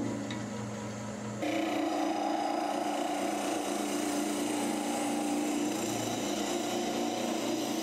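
Wood lathe running with a steady hum while a turning tool hollows the inside of a green arbutus goblet. About a second and a half in, the tool bites and a steady scraping cut starts and holds.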